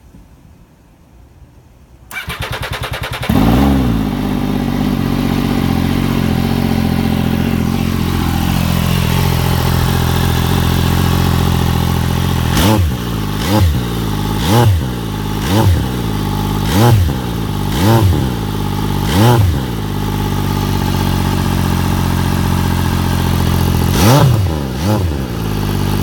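MV Agusta F3 800's three-cylinder engine cranked on the starter from cold, catching after about a second. It idles high, then settles lower. It breathes through a QD exhaust with one baffle removed, and is given seven quick throttle blips in a row and then one more near the end.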